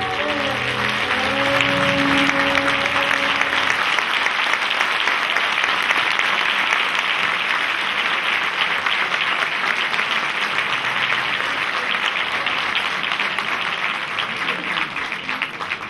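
Audience applauding at the end of a dance performance, with the music's last held notes dying away in the first few seconds; the clapping thins out to scattered claps near the end.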